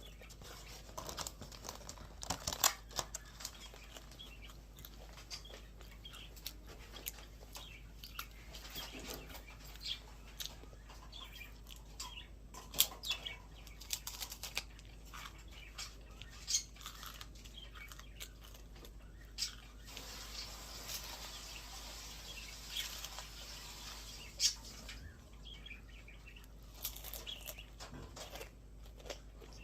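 Eating a wafer ice cream cone: scattered small crunches and mouth clicks of biting and chewing, with a few seconds of soft hissing noise about two-thirds of the way through.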